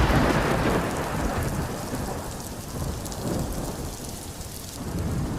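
Rain falling with a low rumble of thunder that fades away over the first few seconds and swells slightly again near the end, used as an interlude between tracks.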